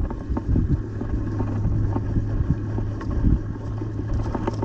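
Wind buffeting the microphone and water sounds around a kayak, with scattered small knocks, and a steady low hum that sets in about half a second in and holds.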